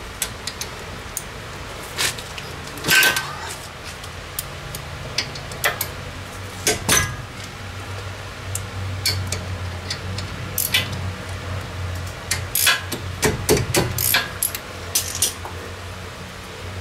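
Irregular metallic clinks and clicks of a wrench and brake hardware being handled while the caliper bolts of a front disc brake are loosened, over a steady low hum.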